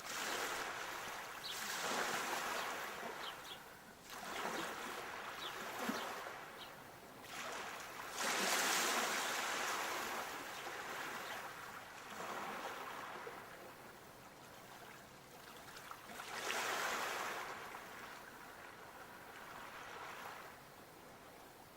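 Sea waves breaking and washing up the shore, swelling and fading every few seconds; the biggest surges come about eight seconds in and again near seventeen seconds.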